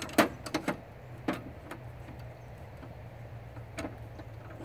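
Table saw blade guard being fitted into its storage clips under the side of the saw: a few sharp clicks and knocks in the first two seconds, then a faint steady low hum.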